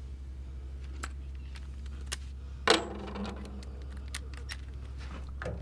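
Light metal clicks of a small hex bit being handled, with one sharp click about three seconds in as the bit snaps into the quick-release chuck of a cordless impact driver.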